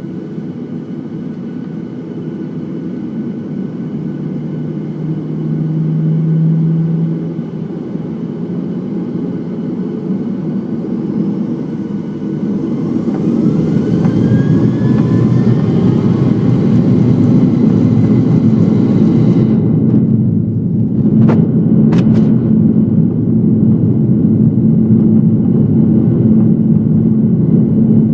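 Boeing 737-900's CFM56 jet engines heard from inside the cabin, spooling up with a rising whine for the takeoff roll. The noise builds, two brief clicks come about two-thirds of the way in, and a steady loud rumble follows.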